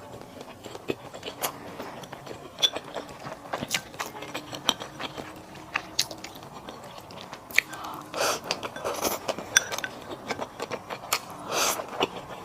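Close-miked chewing and biting of a person eating, full of sharp wet mouth clicks, with a few longer, louder mouth noises past the middle and near the end.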